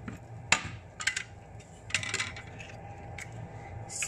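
Scattered light clinks and taps of kitchenware, a handful of sharp separate knocks over a few seconds, over a steady low hum.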